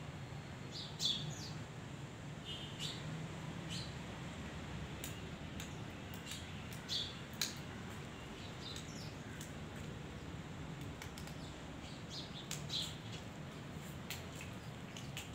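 Small birds chirping now and then in short, high notes, a few louder chirps standing out, over a steady low background hum.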